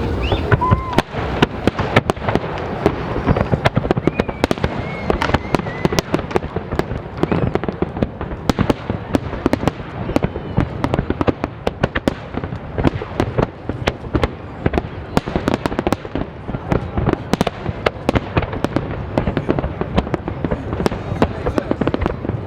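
Fireworks display going off continuously: a dense run of bangs and crackles, many reports a second, with no let-up.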